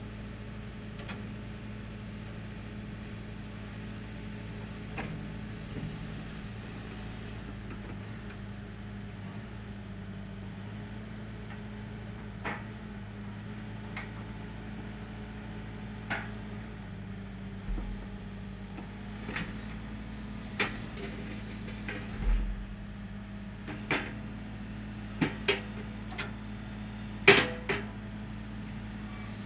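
Case CX145C excavator's diesel engine idling steadily. Over it come a series of sharp metal clanks and knocks, sparse at first and more frequent in the second half, the loudest near the end, typical of a grader blade attachment being hitched to the excavator.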